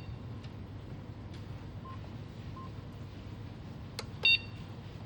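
A single short, high-pitched electronic beep about four seconds in, just after a sharp click, over a steady low hum; two faint short tones sound earlier.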